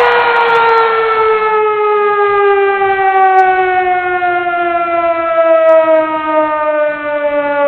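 Motor siren winding down: one long tone falling slowly and steadily in pitch, the 'play ball' siren that starts a Japanese high-school baseball game.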